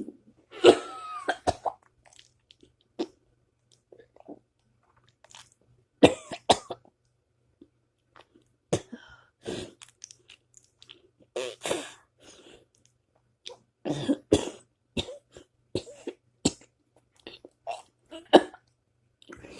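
Repeated burps and cough-like throat noises: a dozen or so short, sudden bursts with quiet gaps between them, the first one drawn out with a wavering pitch.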